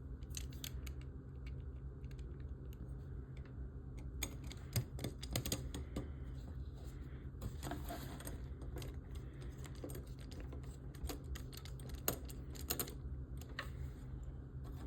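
Scattered small clicks and taps of a screwdriver and tiny screws being worked into die-cast metal model frame parts, over a low steady hum.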